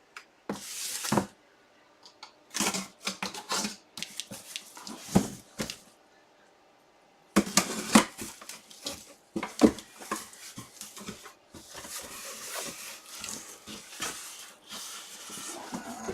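Packaging being handled and opened by hand: scattered clicks and taps, then from about halfway in a steadier crinkling and rustling with more taps.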